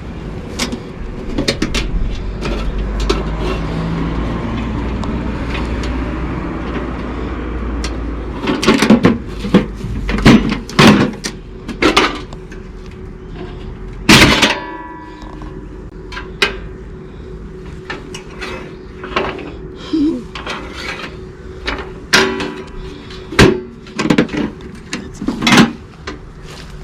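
A low vehicle engine rumble for the first several seconds, then a series of knocks and clatters from objects being handled, with one loud clang about 14 seconds in that rings briefly.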